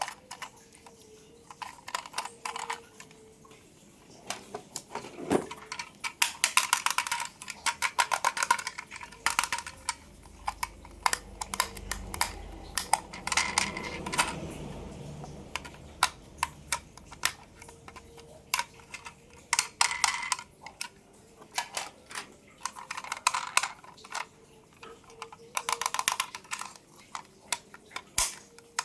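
Small plastic toy cars and their packaging being handled, giving clusters of quick clicks and rattles, with a soft low rumble about halfway through.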